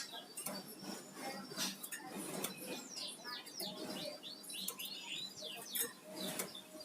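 Flamboyan songbird singing a busy chattering song of sharp clicks and short squeaky notes, with a run of rapid falling chirps in the middle.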